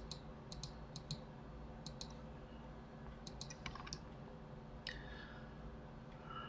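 Faint clicking of a computer mouse: about a dozen short clicks, mostly in quick pairs, with a fast run of them between three and four seconds in, over a faint steady hum.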